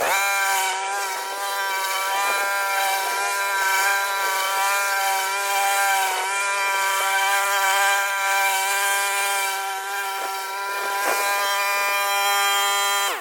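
Kohler XT675 single-cylinder engine on a Yardworks push lawnmower running steadily at mowing speed, with a steady whine that dips briefly twice.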